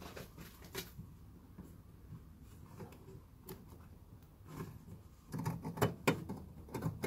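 Hands working a headlight bulb out from behind the headlamp housing: small plastic clicks and scrapes at first, then a denser run of clicks and knocks from about five seconds in as the bulb is twisted and unclipped.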